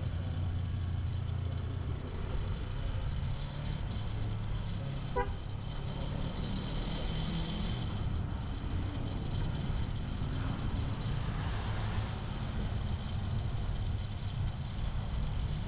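Kawasaki Versys 250's parallel-twin engine running steadily while the motorcycle is ridden, with a brief horn beep about five seconds in.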